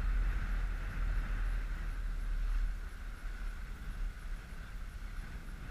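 Inflatable coach boat under way: its outboard motor runs steadily, with wind rumbling on the microphone. The sound eases off slightly about halfway through.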